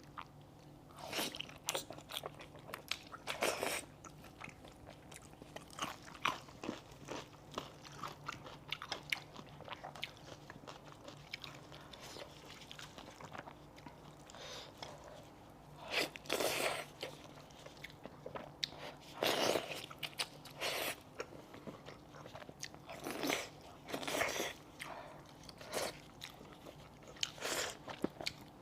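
A person biting and chewing a cooked goat's ear and head meat up close, with crunchy bites through the ear cartilage. The louder bites come irregularly, one every few seconds.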